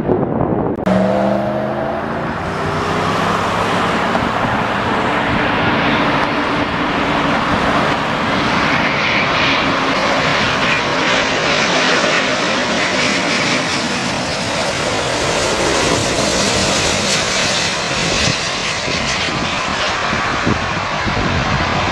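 Airbus A350's Rolls-Royce Trent XWB turbofans on final approach flying low past: a steady jet roar, with engine whine tones that fall in pitch over the first few seconds and a hiss that grows strongest in the second half.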